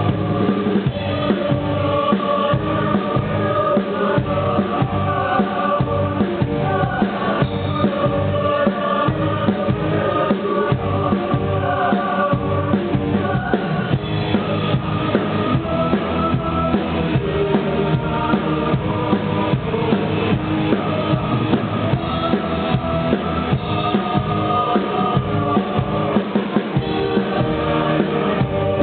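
A choir singing with a live band, a drum kit keeping a steady beat under the many voices.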